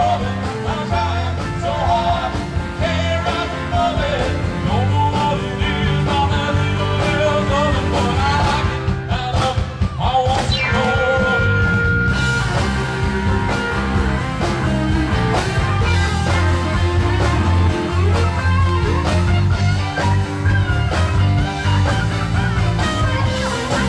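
A live rock band playing through stage PA speakers, with electric guitar, a steady bass beat and some singing. About ten seconds in, one high note is held for a second or so.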